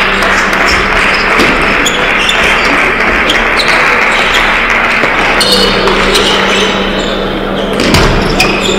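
Table tennis rally: the celluloid ball clicking sharply off the bats and the table, over steady hall noise with a low hum. The rally ends about five seconds in, and a few more clicks and a thud follow later.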